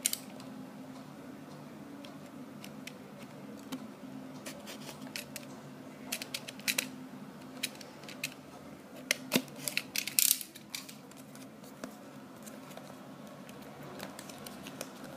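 Cardboard retail box being turned over and handled: scattered clicks, taps and short scratchy scrapes, with the loudest cluster about ten seconds in, over a faint steady hum.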